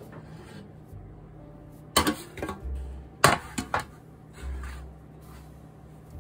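Metal baking tray and cake pan being handled and set down: two sharp clattering knocks about two and three seconds in, followed by a few lighter clicks and dull thuds.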